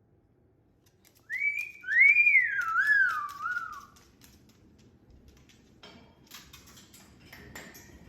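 Moluccan cockatoo whistling one loud phrase that glides up and then falls in three wavers. It is followed by faint clicking and scratching.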